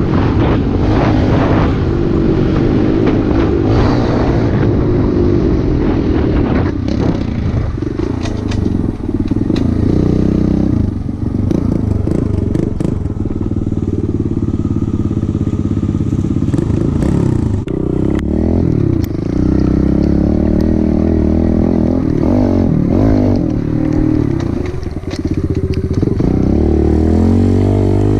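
Small dirt bike's engine running while being ridden, its pitch rising and falling as the throttle opens and closes, with brief let-offs a few times.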